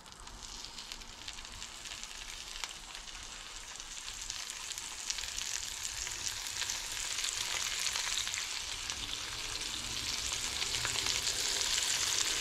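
Fish fillets sizzling in hot oil in a frying pan as they are laid in one after another, with small pops of spitting oil. The sizzle grows steadily louder as more fillets go in.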